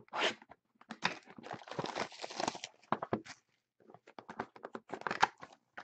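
Cardboard trading-card boxes, among them a Panini Totally Certified box, being handled and slid about by hand: a run of clicks, taps and scrapes, with a longer stretch of rustling about one to three seconds in.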